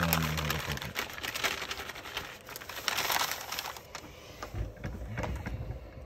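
A brown paper bag puppet crinkling and rustling as a hand works its flap mouth, then a few dull bumps about two-thirds of the way through.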